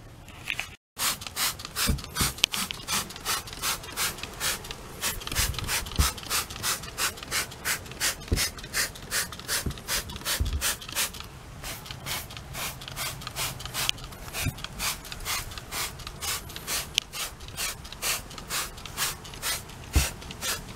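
Rhythmic hand scrubbing of car interior surfaces during cleaning, back-and-forth rubbing strokes at about three a second, with a few low knocks.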